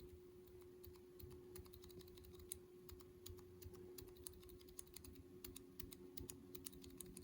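Faint, quiet typing on a mechanical keyboard fitted with Akko Penguin silent tactile switches, their keystrokes damped by silicone pads into soft, irregular clicks. A faint steady hum runs underneath.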